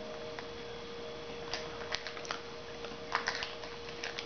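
Scattered small, crisp clicks and crackles as a matcha wafer is broken and bitten, over a steady faint hum.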